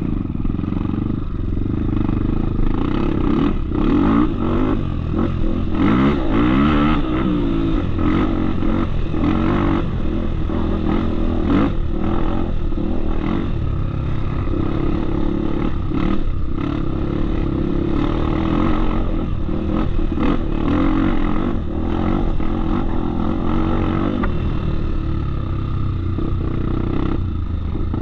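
Off-road trail motorcycle engine running under way, its revs rising and falling, with scattered knocks and rattles.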